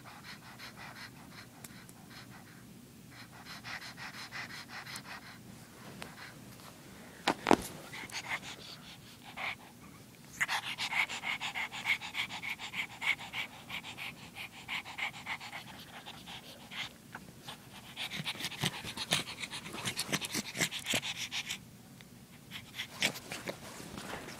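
Pug puppy panting quickly in bouts, loudest in the second half. A single sharp knock comes about seven seconds in.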